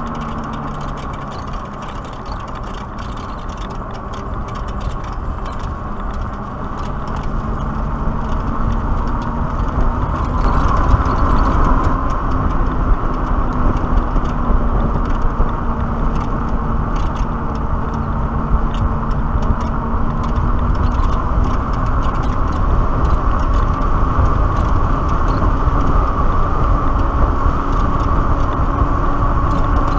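Wind rushing over the microphone and tyre noise on asphalt from a Black Tea Bonfire X electric motorcycle, with no engine sound. It grows louder about seven to eleven seconds in as the bike speeds up, then holds steady.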